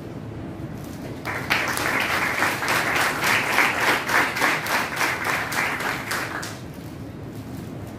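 A roomful of people applauding. The clapping starts just over a second in and dies away after about five seconds.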